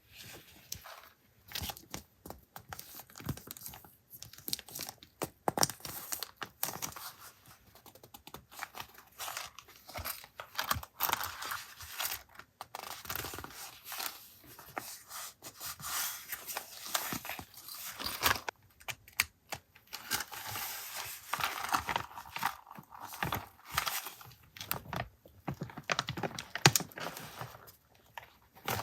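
Paper and plastic packaging rustling and crinkling as it is handled, with many small taps and clicks.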